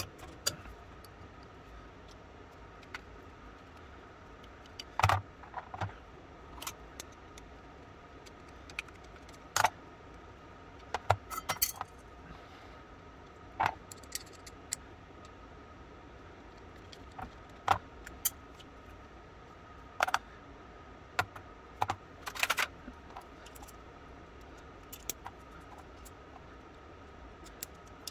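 Scattered light metallic clicks and clinks, some in quick little clusters, as the small steel parts of an antique boot pistol's lock and grip are handled and taken apart.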